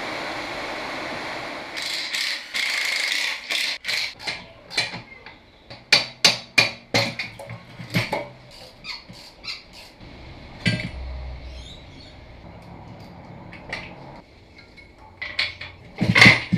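Steady rain-like hiss for the first two seconds, then a hammer striking metal in many irregular blows, some in quick runs, with scattered strikes later.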